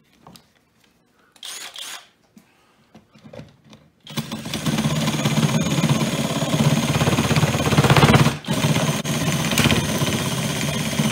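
Reciprocating saw attachment on a cordless drill cutting a birch board: two short starts, then from about four seconds in a continuous loud rapid sawing with a brief break near eight seconds. The attachment jumps and rattles in the cut.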